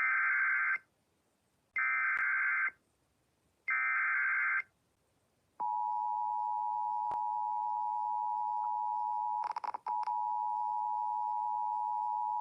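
Emergency Alert System broadcast signalling a severe thunderstorm warning. It opens with three short bursts of SAME digital header data, each about a second long with a second's gap. Then, about five and a half seconds in, the steady two-tone attention signal (853 and 960 Hz) begins; it breaks up briefly just under ten seconds in.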